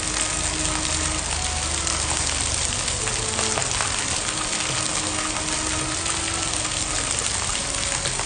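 Heavy tropical rain pouring steadily onto wet brick paving, a dense, even hiss of falling water.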